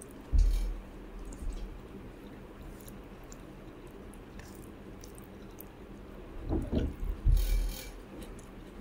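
Eating sounds: soft, wet squishing and chewing of rice, sardines and green beans, with a few low thumps about half a second in and twice more between six and a half and eight seconds.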